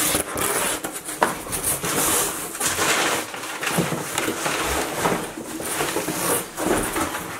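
Cardboard box and packing material being handled and rustled as a parcel is unpacked, a continuous scraping and crinkling with a sharp click about a second in.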